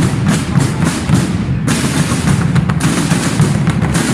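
A rapid, continuous run of loud percussive bangs, growing denser and louder a little under two seconds in.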